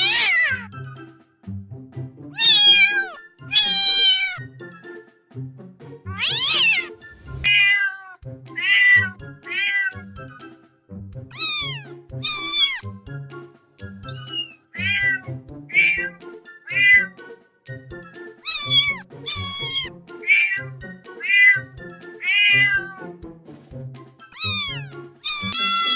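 Cat meowing over and over, about twenty short calls of varying pitch, many sliding downward, each under a second long.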